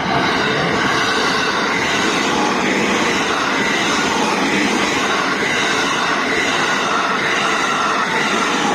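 Freight train passing at speed, its wagons rolling by in a loud, steady rush of wheel and rail noise.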